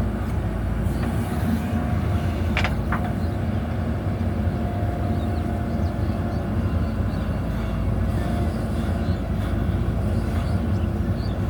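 JCB backhoe loader's diesel engine running steadily, with two brief sharp clicks about two and a half seconds in.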